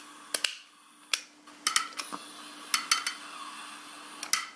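Long-reach butane utility lighter clicking as its trigger is pressed and released to light a candle: about four sharp double clicks, spread a second or so apart, over a faint steady hum.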